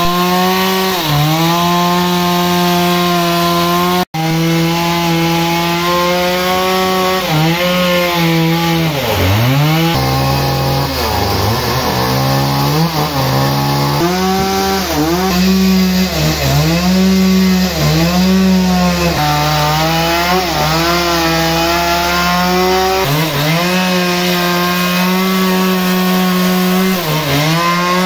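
Stihl two-stroke chainsaw at full throttle cutting through a large log. The engine note dips sharply and recovers again and again as the chain bogs down under load in the wood.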